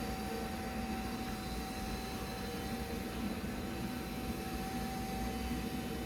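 Xiaomi window-cleaning robot running, its suction fan giving a steady whine over an even rushing noise.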